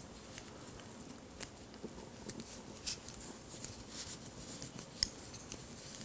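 Knitting needles clicking and tapping lightly as stitches are worked by hand: irregular faint ticks, the sharpest one about five seconds in.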